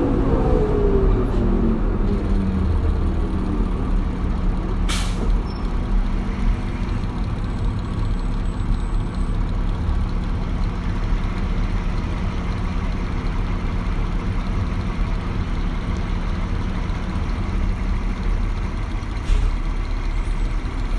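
Diesel transit bus with a Detroit Diesel Series 40 engine and Allison B400R5 transmission winding down in pitch as it slows, then idling steadily. A short, sharp air hiss from the air brakes comes about five seconds in, and a fainter one near the end.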